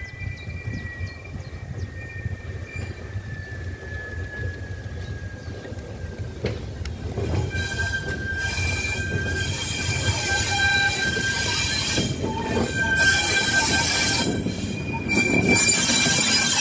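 Passenger train led by a class 73 electro-diesel locomotive rounding a curve and drawing close. Its wheels squeal in several high, steady tones over a low rumble, getting louder as the locomotive nears and passes close by.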